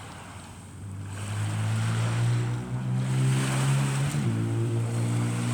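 A loud, steady low engine drone comes up about a second in and holds, with a brief dip in pitch near the end, which the listener takes for a motorboat going by. Surf washes underneath.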